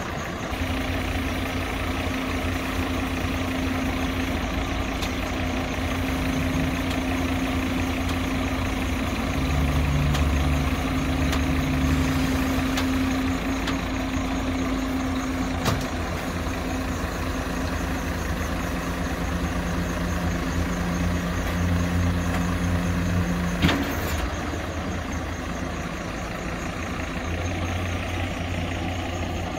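Isuzu tilt-tray tow truck's diesel engine idling while its hydraulics work the winch and tilt tray, with a steady hum over the engine. The hum stops with a clunk about 24 seconds in as the tray settles, and the engine idles on.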